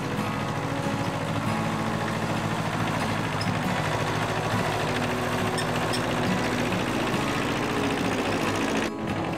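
Tractor engine running steadily with a fast, even pulsing, most likely driving the grass-cutting attachment. About nine seconds in, the low rumble cuts out abruptly.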